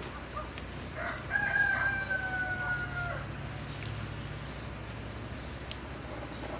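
A rooster crowing once: a broken start, then one long, slightly falling note lasting about two seconds, beginning about a second in.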